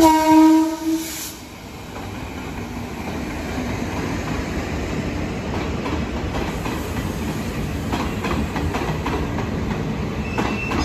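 Indian Railways electric locomotive sounding one horn blast of about a second as it arrives. Its intercity coaches then roll steadily past along the platform, wheels clacking over the rail joints, with a brief high wheel squeal near the end.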